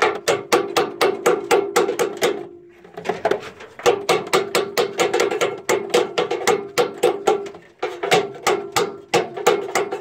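Rapid metallic clicking, about five clicks a second in three runs with short breaks, each click ringing: a screwdriver working at the bolt that holds the blower motor's run capacitor to the sheet-metal fan casing of a gas furnace.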